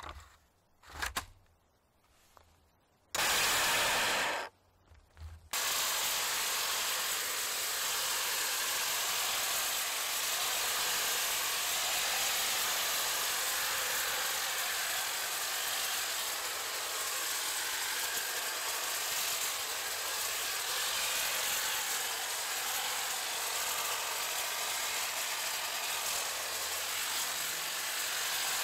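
Cordless battery hedge trimmer: the battery pack clicks into place, then the trimmer runs in a short burst about three seconds in, stops, and starts again a couple of seconds later, running steadily through the rest while its blades cut through overgrown brush.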